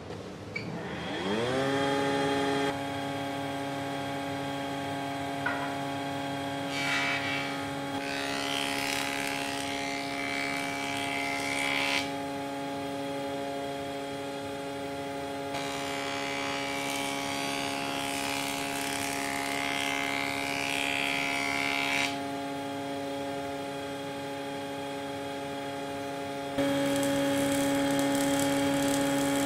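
A woodworking surface planer is switched on. Its motor and cutterhead spin up with a rising whine over a second or two, then run at a steady hum. A board is fed across the cutterhead twice, each pass a few seconds of loud cutting noise over the steady running. Near the end the machine running sound steps up abruptly and gets louder.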